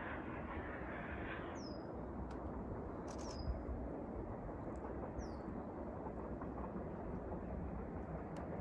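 A small bird gives short, high calls that fall in pitch, three times a couple of seconds apart, over a steady low outdoor rumble.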